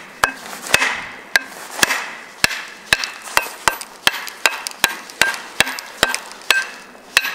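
Wood being struck with a hand tool in quick repeated blows, about two a second, each a sharp knock with a short ring.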